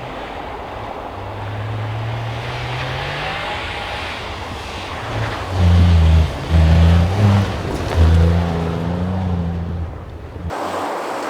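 Rally car engine revving hard on and off the throttle, with a low note climbing in the first few seconds and then several loud bursts of revs in the second half. The sound changes abruptly near the end.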